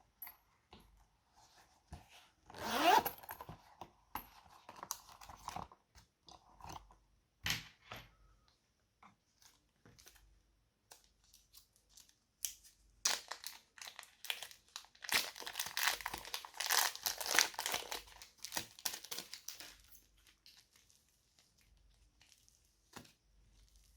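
Crinkling, crackling clicks from hands working slime and its add-ins. The busiest stretches come about two to four seconds in and from about thirteen to twenty seconds in, with scattered single clicks between.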